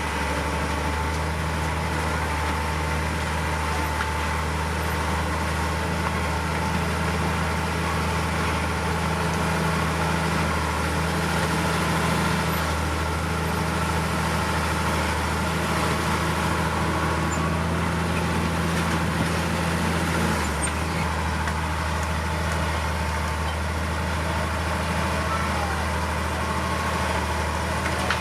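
Heavy diesel engine of earthmoving machinery running steadily, a low drone that holds its pitch, with a brief dip about twenty seconds in.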